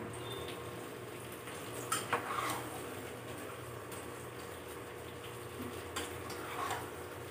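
A spatula stirring and scraping chicken pieces around a pan on a gas stove, clattering against the pan about two seconds in and again near the end. Underneath, a steady sizzle of the marinated chicken cooking and boiling in the water it has let out.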